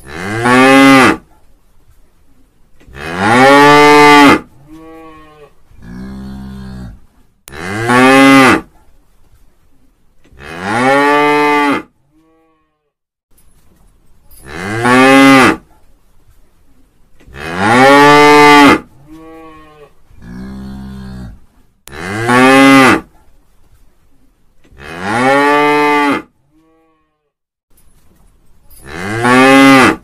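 A cow mooing over and over: about a dozen long moos, each a second or so long, every two to three seconds, each rising and then falling in pitch. A few of them are quieter and lower.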